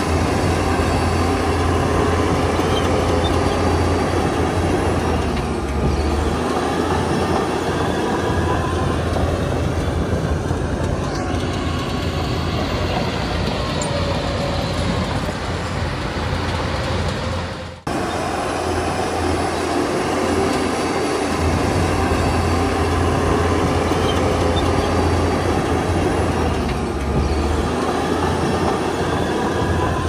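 Bulldozers working, their diesel engines running under load with the clatter of steel tracks, steady and loud. The sound drops out for an instant a little past halfway.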